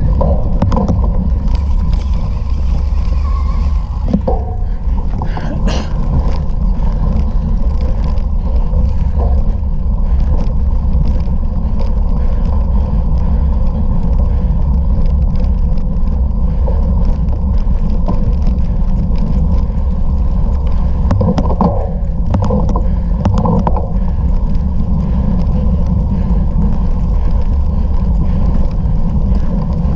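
Steady low rumble of wind and riding noise on the microphone of a camera carried on a racing bicycle.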